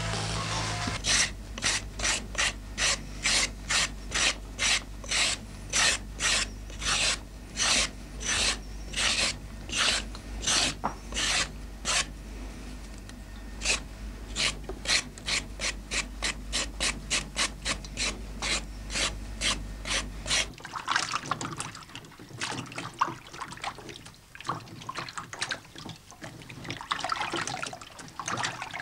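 A carrot being scraped with a small knife: a steady run of rasping strokes, about two or three a second with brief gaps. Roughly two-thirds of the way through the strokes stop and give way to a denser, irregular wet rustle as cut carrot sticks are handled in a colander with water.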